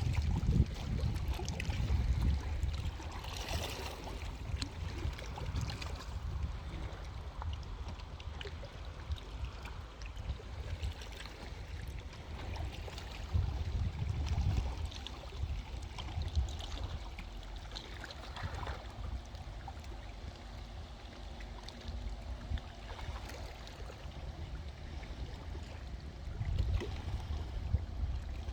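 Water lapping and washing at the edge of a large reservoir, with a gusty low rumble of wind buffeting the microphone.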